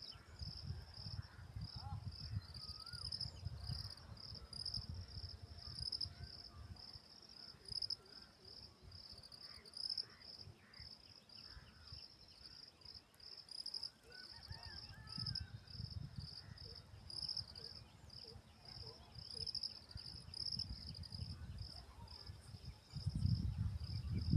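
Cricket chirping steadily, about two short high chirps a second, with a low rumble that comes and goes.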